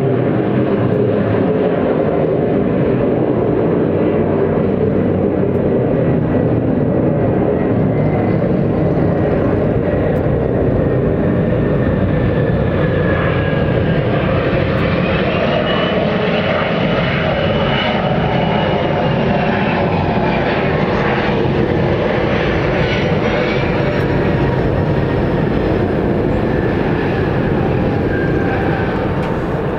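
Bombardier CRJ-200 regional jet landing and rolling out on the runway, its rear-mounted General Electric CF34 turbofans making a steady jet roar. A thin engine whine slowly drops in pitch. About halfway through a higher whine rises, holds for several seconds, then falls away.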